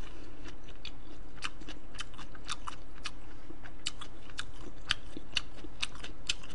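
Close-miked chewing of a mouthful of seafood stew and rice: a run of short, wet mouth clicks and smacks, about three a second, uneven.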